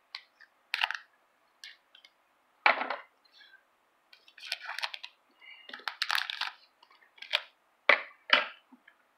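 Crackling and rustling of the clear plastic wrapper on a hockey card repack as it is handled and torn open, with a few sharp crinkles standing out.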